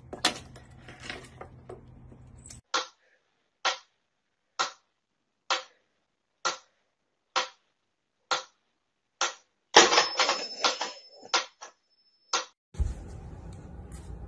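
A few knocks and taps over a low room hum, then a run of short, sharp clicks evenly spaced about one a second, broken once by a burst of clattering with a thin high whistle under it; the room hum returns near the end.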